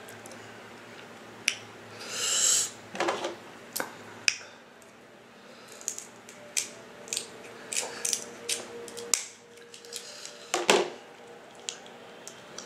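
Close-up eating sounds from a seafood boil: scattered sharp mouth smacks and clicks, with two louder, longer slurps, one about three seconds in and another late on.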